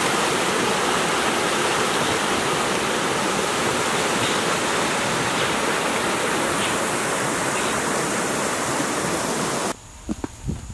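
Steady rushing of a small waterfall and cascading stream, an even wash of water noise. Near the end it cuts off suddenly, leaving a few light knocks.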